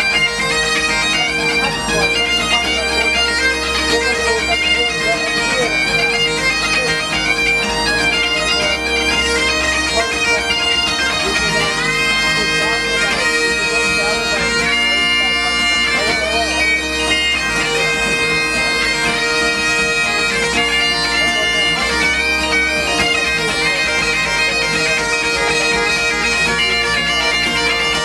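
Two sets of bagpipes playing traditional Scottish dance tunes over a steady drone, with acoustic guitar strumming along.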